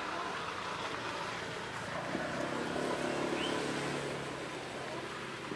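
Steady outdoor background noise, with a low motor-like hum coming in about two seconds in and holding steady.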